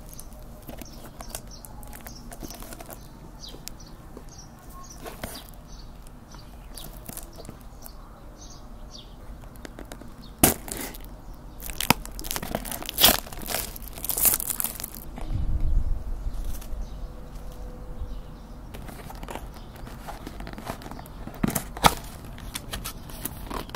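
A paperboard cake box being opened by hand: sharp snaps as the tuck flap comes loose, with crinkling and rustling of the cardboard and its plastic film. The noises come in bursts starting about ten seconds in, with another snap near the end.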